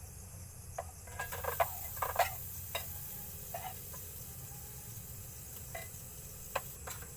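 Sardines cooking in a pan: a spoon stirring and tapping against the pan in irregular clicks, busiest in the second and third seconds, over a steady sizzle that comes up about a second in.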